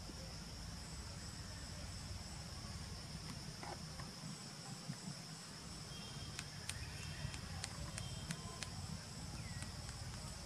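Steady high-pitched insect drone over a low rumble, with a scatter of sharp clicks and short high chirps between about six and nine seconds in.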